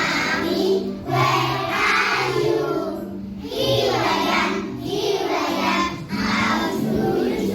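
A group of young children singing together over recorded backing music that holds steady low notes.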